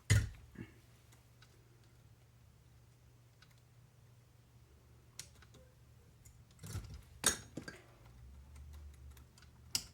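Scattered clicks and clinks of small RC car parts and hand tools being handled and set down on a workbench, the loudest at the very start, a few together about seven seconds in, and one more near the end.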